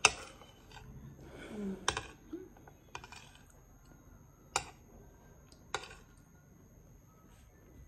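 Metal cutlery clinking and scraping against a plate as food is scooped up: four sharp clinks spread over several seconds, the first the loudest, with short scraping sounds between them.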